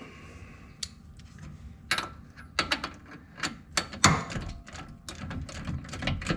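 Hand ratchet clicking in quick irregular runs as a track bar mounting bolt is tightened down, starting about two seconds in.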